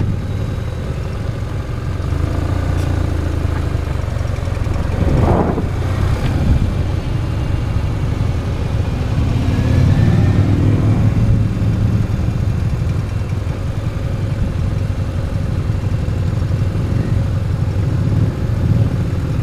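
Motorcycle engine running at low parking-lot speeds, heard from a camera on the bike itself, its note rising and falling as it speeds up and slows, most clearly about five seconds in.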